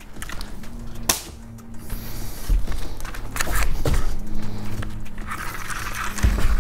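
Background music with sustained notes. About a second in there is a single sharp snap, a chalk line being snapped onto the roof underlayment.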